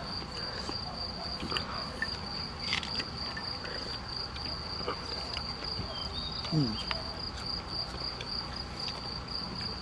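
Crickets chirring in a steady, unbroken high-pitched trill.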